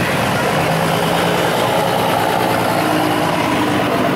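Heavy pickup truck's engine idling steadily as the truck creeps past at walking pace.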